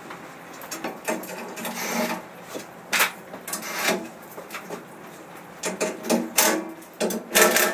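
Irregular knocks, scrapes and rubbing as a long bar and hand tools are handled on and around a bandsaw's table, with a few sharper knocks near the end.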